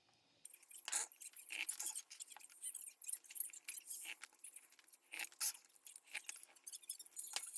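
Close-up eating sounds: irregular crunches, smacks and small clicks of someone chewing food, a few a second.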